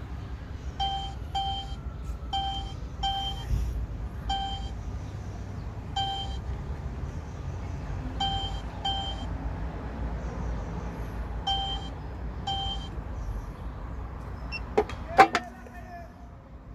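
Electronic keypad beeps from a key-cutting machine being set up to cut a duplicate HU66 key from the decoded cut depths: short single and paired beeps at one steady pitch, at irregular intervals, over a low hum. Two sharp clicks come near the end.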